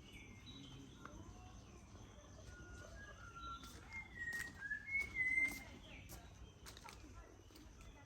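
A bird calling: a run of short whistled notes that come loudest about four to five and a half seconds in, over a faint steady background.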